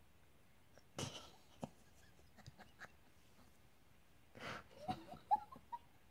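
African grey parrot making breathy, wheezy hissing sounds and small clicks, then a few short squeaky whistles just after five seconds in.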